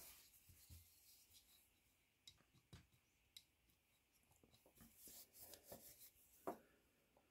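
Near silence with faint handling noises from a steel Mauser K98 bayonet being turned over in the hands: soft rubs and scattered small clicks. The sharpest is a single knock about six and a half seconds in.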